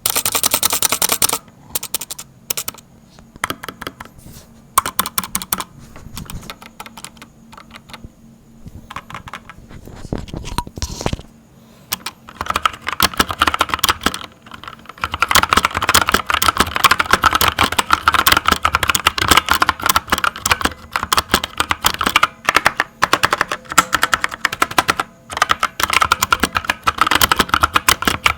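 Kodessa KDA61 60% mechanical keyboard with Outemu brown switches being typed on: scattered keystrokes for the first dozen seconds, then fast, continuous typing.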